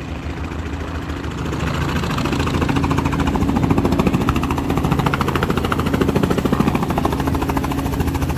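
Small two-bladed helicopter running close by with its rotor turning: a steady engine hum under a fast, even rotor chop that grows louder about two seconds in as the helicopter hovers toward the camera.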